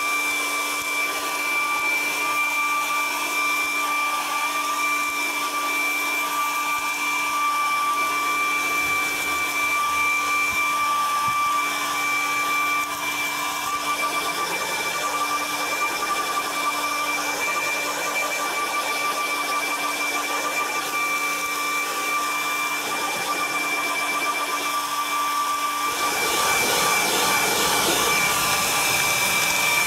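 Handheld electric hair dryer blowing steadily with a constant high whine, aimed at freshly primed bodywork on a car door to dry it. Near the end the blowing turns louder and hissier.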